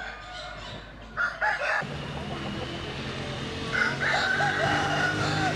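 Rooster crowing: a short call just over a second in, then a long, loud crow held on one pitch near the end. A low steady hum runs underneath from about two seconds in.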